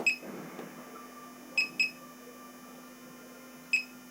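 Laser projection keyboard giving a short, high keypress beep as keys are tapped on the projected layout: four beeps, two of them in quick succession, over a faint steady hum.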